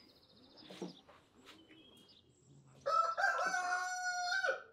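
A rooster crowing once: a single long call, held for about a second and a half near the end, dropping off as it ends.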